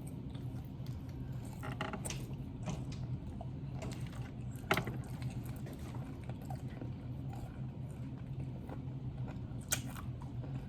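Eating sounds: chewing and scattered small mouth clicks, over a steady low hum.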